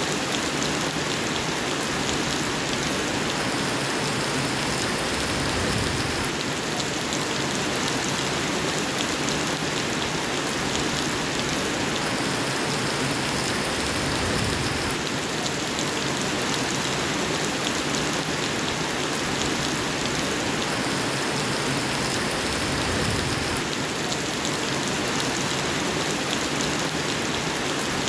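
Steady rain falling, an even rushing hiss that holds at the same level throughout.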